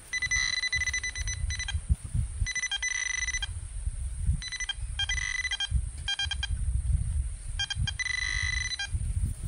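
Metal-detecting pinpointer buzzing in a string of short high electronic tones, about eight pulses of under a second each, some breaking into fast rapid beeps, as it is worked in a dig hole: the sign of a metal target close to the probe. Soil and grass rustle low underneath.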